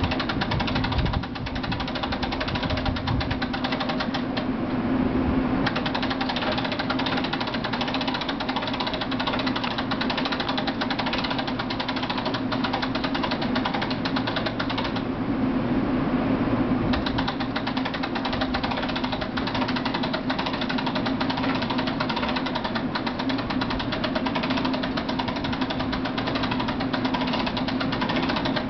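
Machinery of a stationary train running steadily: a dense, rapid knocking over a constant low hum.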